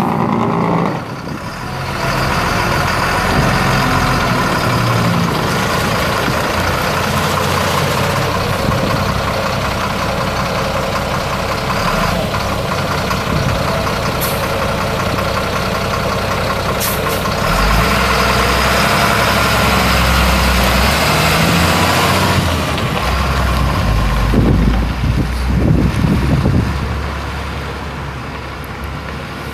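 Caterpillar 3116 inline-six diesel engine of a 1997 GMC 8500 dump truck running steadily. About two-thirds of the way in it turns deeper and louder, and it fades near the end.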